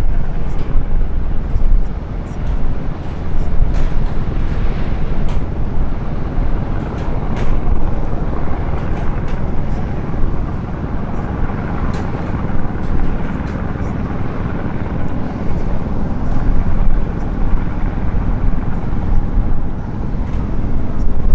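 Low, steady rumble of a river cruise ship's diesel engines as the motor ship moves along, with a noisy wash above it.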